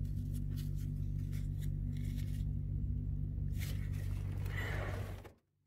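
Steady low drone of a lorry's engine heard from inside the cab, with scattered light clicks and a brief rushing noise near the end. The sound cuts off abruptly about five seconds in.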